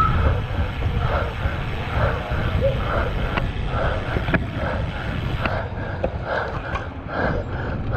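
Wind rushing over a handlebar-mounted camera's microphone and road rumble from a road bike ridden at racing speed, a steady low noise throughout.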